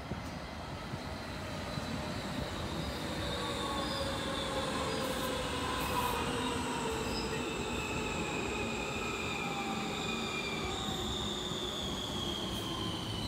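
Amsterdam metro train pulling into the platform and slowing down, getting louder from about two seconds in. Several whining tones slide steadily down in pitch as it brakes, over the rumble of the wheels on the rails.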